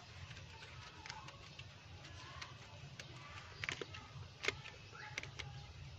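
Faint, irregular metallic clicks and taps of a screwdriver turning a small screw on a car's distributor, the loudest about four and a half seconds in, over a low steady hum.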